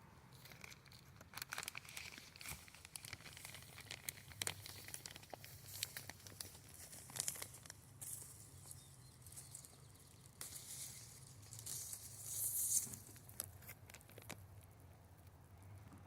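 Peach tree leaves and branches rustling, with many sharp clicks and snaps as peaches are picked by hand, and a louder rustle about three-quarters of the way through.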